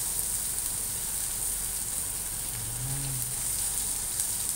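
Sliced baguio beans (green beans) and onion sizzling steadily in hot oil in a nonstick frying pan while a spatula stirs them.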